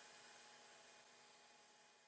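Near silence: a faint steady hiss with a faint hum, slowly fading.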